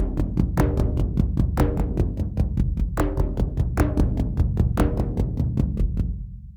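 Nord Drum 3P drum synthesizer playing a preset-bank groove: a fast, even pulse of strokes with pitched, tom-like hits recurring about once a second over a sustained low bass tone. The pattern fades out near the end.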